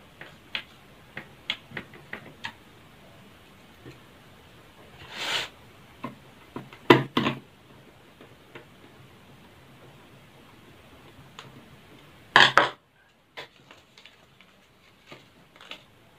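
Scattered small clicks and light knocks of a screwdriver and hands working on a laptop's plastic bottom case while its screws are tightened, with a few louder clattering knocks and scrapes from handling the laptop, the loudest about halfway through and again near the end.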